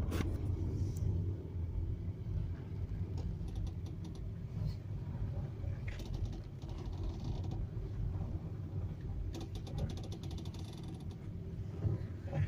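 Creaking from a VW Touran's front suspension as the steering is turned at low or no speed, over the steady low rumble of the car running. It comes in runs of rapid clicks, three times. The owner suspects a strut mount or a sway bar link.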